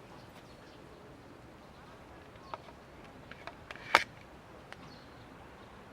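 Football being kicked: a few faint knocks, then one loud sharp knock about four seconds in, over a steady outdoor haze.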